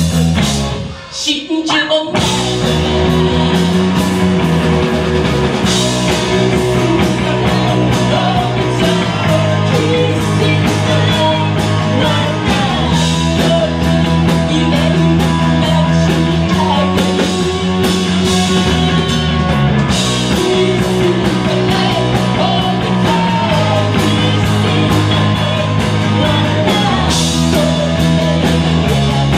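Live rock band playing: electric guitar, bass and drums with a lead singer. The band drops out briefly about a second in, then the full band comes back in under the vocal.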